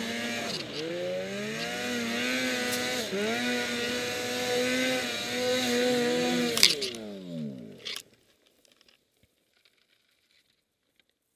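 Turbocharged snowmobile engine running at high revs, with brief dips in pitch as the throttle is let off. About six and a half seconds in there is a loud knock. The engine then winds down with falling pitch and stops about eight seconds in as the sled tips over on the sidehill.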